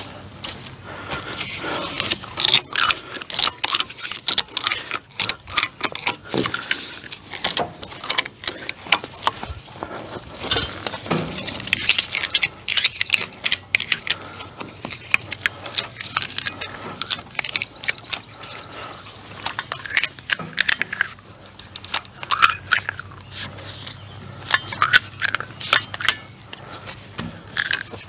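Ratchet strap being cranked to stretch a woven-wire fence tight: spells of rapid metallic clicking and rattling with short pauses between them.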